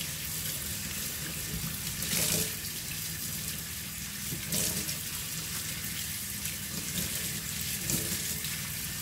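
Kitchen tap running into a stainless steel sink as squid tentacles are rinsed by hand under the stream, with louder splashes now and then, the biggest about two seconds in.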